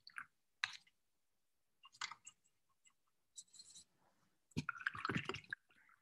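Soft clicks and taps from a watercolor paint box and brush being handled as painting begins, with a brief watery swish. The loudest part is a cluster of clicks and clatter lasting about a second, near the end.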